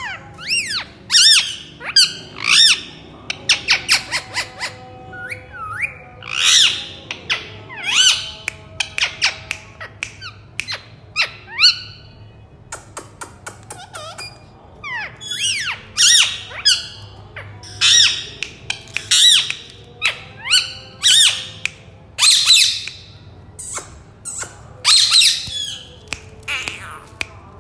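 Indian ringneck parakeets squawking: many short, high, shrill calls in quick series, with a quieter stretch of brief clicks about halfway through.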